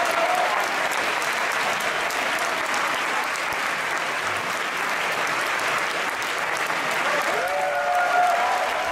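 Theatre audience applauding steadily, a dense continuous clapping, with a voice calling out from the crowd near the end.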